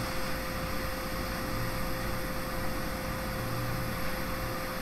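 Quick 861DW hot air rework station blowing a steady hiss of air, set to 70 airflow, onto a tiny component on a phone board to melt its solder joints for removal. A steady mid-pitched hum runs underneath.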